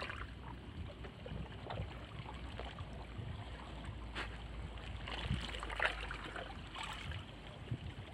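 Gentle sea water lapping and sloshing against shoreline rocks, with a few small splashes.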